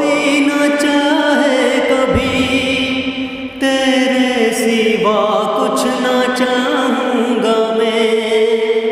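A man singing unaccompanied into a condenser microphone in long, held, wavering notes, with a delay effect from the mixer echoing each phrase. The singing breaks briefly about three and a half seconds in.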